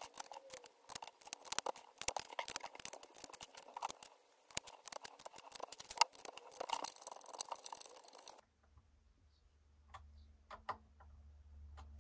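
Close handling noise of small parts: rapid clicks and rustles as wires and connectors are fitted and a screwdriver works on screws on a circuit board. It stops abruptly about eight seconds in, leaving only a few faint clicks over a low hum.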